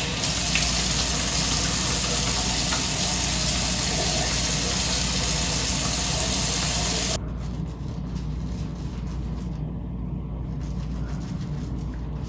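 Bathroom sink tap running steadily while water is splashed onto the face, then shut off abruptly about seven seconds in, leaving a quieter low steady hum.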